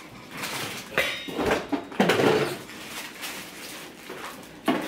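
Kitchen clatter: a few knocks and thumps of things being moved about and set down, the loudest about two seconds in.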